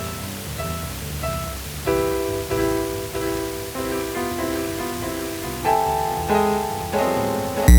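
Layered electronic keyboard music from a Yamaha PSS-A50 portable keyboard: a low bass line under a sparse melody, joined about two seconds in by sustained chords that change every half second or so. A loud thump near the end.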